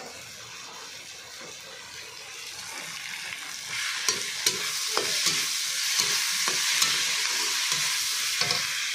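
Chopped onion and parwal pulp sizzling as they fry in a kadhai, with a metal spoon scraping and clicking against the pan as it is stirred. The sizzle is quieter at first and gets louder about three and a half seconds in.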